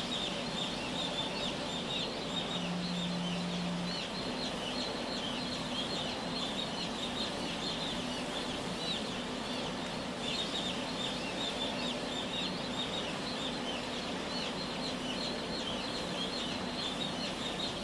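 Dense chorus of hundreds of newly hatched broiler chicks peeping continuously, many short high cheeps overlapping, over a faint low steady hum.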